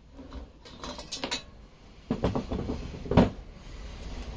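Metal clatter and knocks of a chainsaw guide bar and chain being pulled off the saw and laid down on the workbench, the loudest knock about three seconds in.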